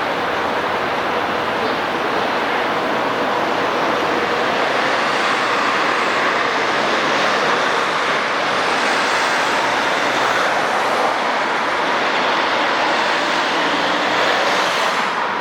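Steady noise of city traffic, an even wash of sound with no bird calls standing out.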